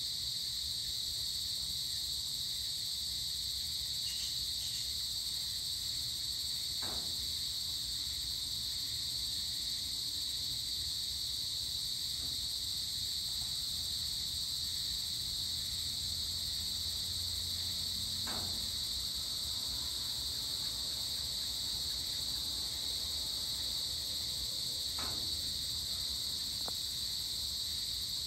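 Steady chorus of evening insects: a continuous high-pitched shrill trill that never breaks, with a fainter, even higher layer above it. A faint low hum lies underneath.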